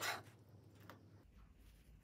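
One knock of a chef's knife on a plastic cutting board at the very start, then faint handling sounds of sliced green onion on the board over quiet room tone.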